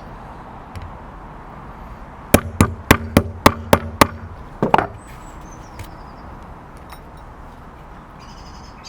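A hammer strikes a snap-fastener setting tool seven times in quick succession, about four blows a second, then two more in quick succession. These are the blows that set a press-stud fastener into canvas.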